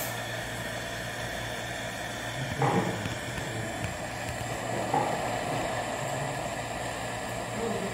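Steady hiss of a jeweller's handheld gas torch flame, with two short louder sounds about two and a half and five seconds in.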